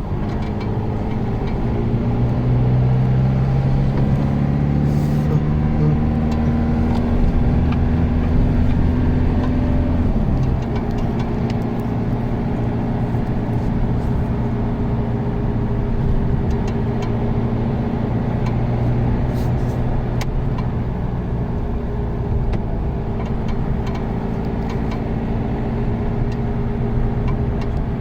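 A vehicle's engine running while moving, a steady hum whose pitch shifts about ten seconds in.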